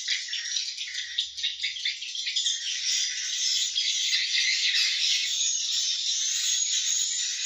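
Swiftlets twittering in a dense, continuous chatter of rapid high chirps that grows a little fuller a couple of seconds in. This is the swiftlet call sound used to lure the birds into a nest house to roost and nest.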